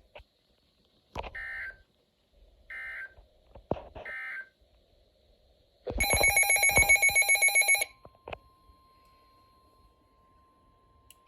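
Emergency Alert System end-of-message data bursts: three short digital screeches about a second and a half apart, closing a weather radio warning. These are followed by a loud, rapidly pulsing electronic alarm beep lasting about two seconds, then a faint steady tone.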